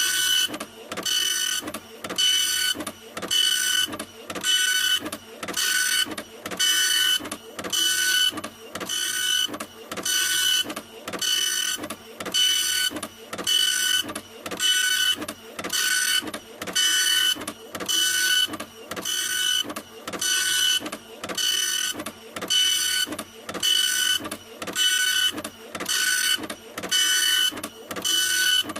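A printer running steadily, its mechanism working in a regular rhythm of about one pass a second, with a high whine between the strokes.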